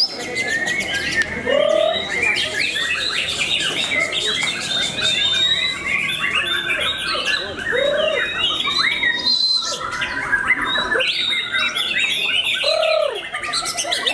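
Caged white-rumped shamas in a songbird contest, several singing at once: a dense, unbroken mix of overlapping chirps, trills and whistles. Three lower, arched whistled notes stand out, near the start, in the middle and near the end.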